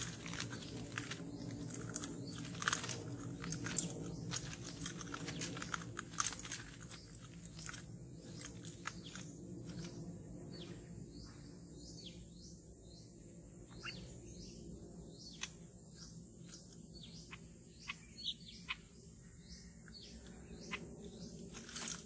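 Birds making many short, dry clicks and brief chirps, thickest in the first few seconds and then scattered. Beneath them runs a steady high insect drone.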